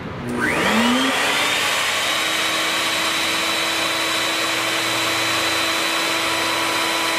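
Electric router fitted with a cove bit switching on, its motor whine rising quickly in pitch as it spins up, then running at a steady high speed as it starts routing the coved joint in the corner of a solid-surface countertop and backsplash.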